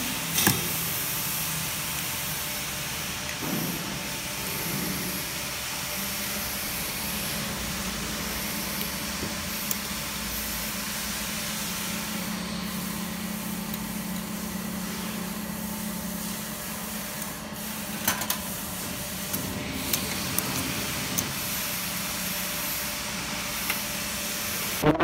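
Cutting machine running with a steady hiss and a low hum that grows stronger about six seconds in, with a few light clicks, the loudest near the start.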